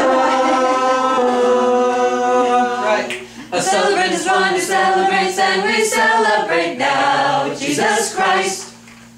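Mixed choir of women's and men's voices singing a cappella in rehearsal: a long held chord for about three seconds, then a further moving sung phrase that drops away near the end.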